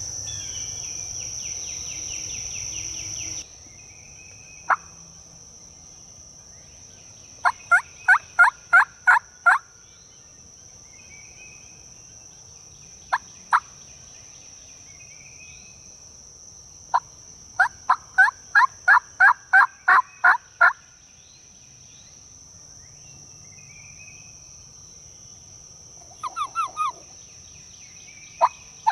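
Wild turkey yelps in runs: a single note, a run of about eight, a pair, a longer run of about ten, then a quick run of four. Each note is short and sharp. A steady high insect drone and faint bird chirps run underneath.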